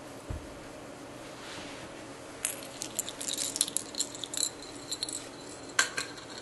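A cat toy's small bell jingling and rattling as kittens bat it about. The quick run of jingles starts a couple of seconds in, followed by two sharper clicks near the end.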